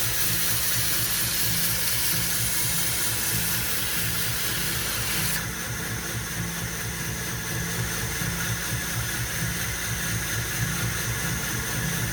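Belt grinder running with a 120-grit ceramic belt: a steady motor hum under a hiss, the hiss easing a little about five seconds in.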